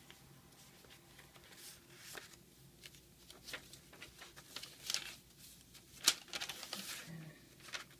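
Paper pages of a thick handmade journal being turned by hand: scattered papery rustles and crinkles, with one sharper flick about six seconds in.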